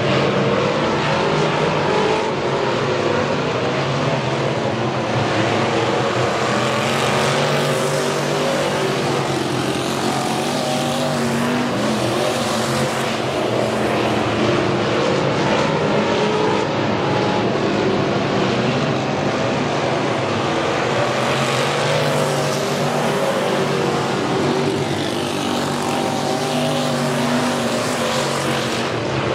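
Several dirt track race cars' engines running around the oval, the sound swelling each time cars pass close by on the front stretch.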